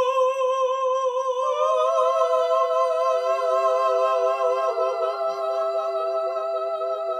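Voices holding a sustained a cappella chord with vibrato: one note at first, a higher note joining about a second and a half in, and a lower note joining about three seconds in, all held steady.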